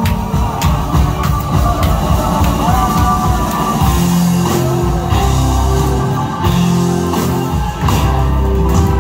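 Live rock band playing loud and full: electric guitars over bass and a drum kit keeping a steady beat.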